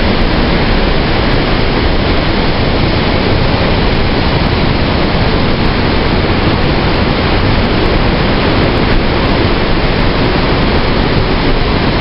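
The Rhine Falls: a loud, steady rush of white water pouring over the rocks at close range.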